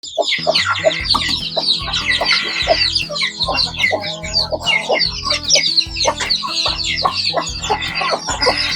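Chickens clucking busily, many short calls overlapping, over background music with a steady low beat about twice a second.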